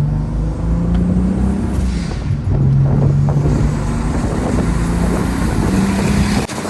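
Turbocharged VR6 engine and exhaust under load, the engine note stepping up in pitch and falling back several times, with a high turbo whistle climbing over it in the second half. The sound drops away sharply near the end.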